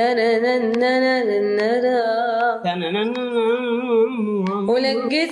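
A woman singing unaccompanied, drawing out one long melismatic 'tannnn' on a single vowel. The pitch wavers and bends gently, with a brief break and re-entry about two and a half seconds in.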